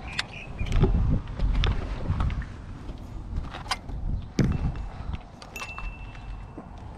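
Wind rumbling on the microphone, with scattered clicks, knocks and light metallic rattles as bicycles are handled. A thin high whistle near the end.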